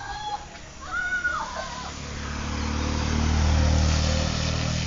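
A motorcycle engine passing close by, growing louder to a peak about three and a half seconds in and then fading, as a bucket of water is splashed at it. Voices are heard near the start.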